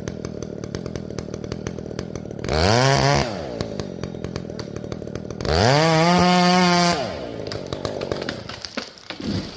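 Chainsaw idling with a rapid ticking, revved twice: a short blip about two and a half seconds in, then a longer rev about five and a half seconds in that climbs and holds for over a second before dropping back to idle.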